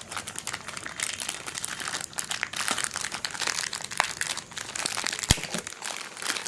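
Packaging from a headphone box crinkling and rustling as the cables and contents are handled, with one sharp click a little after five seconds in.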